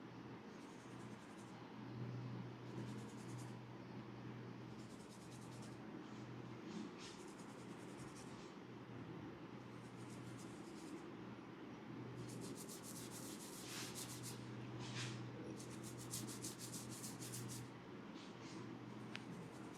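Fingertips rubbing and scratching through hair on the scalp during a head massage, quiet, over a low steady hum. From about twelve seconds in, the scratching turns faster and crisper.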